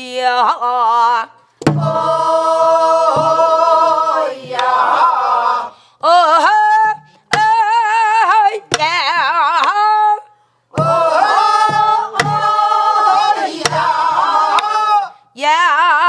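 Korean Namdo folk song sung in a woman's voice with deep, wide vibrato, in short phrases with brief breaths between them. A sori-buk barrel drum accompanies it, with sharp stick strokes on the rim and low thuds on the drumhead now and then.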